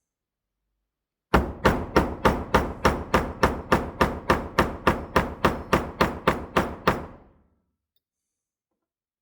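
A small hammer striking metal in a steady run of about twenty blows, roughly three or four a second, each with a brief ring, stopping about seven seconds in: peening over a rivet to join the screwdriver blade and hook tool.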